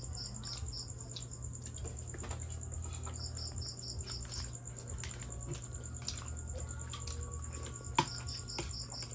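Night insects, such as crickets, trilling in a fast, steady, high pulse, with three short runs of quick chirps. Light clinks of spoon and hands on plates come through, with one sharp clink about eight seconds in, over a low steady hum.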